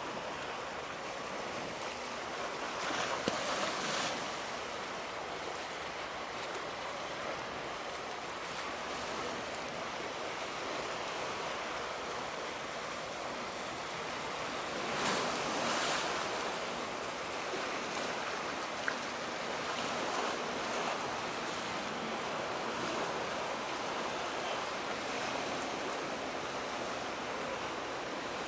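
Steady rush of water waves and wind, swelling louder twice: about three seconds in and again around fifteen seconds in.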